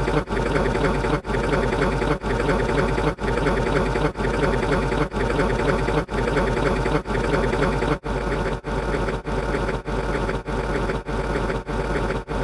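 A short buzzing, machine-like sound clip looped over and over, restarting about once a second and then about twice a second from about eight seconds in.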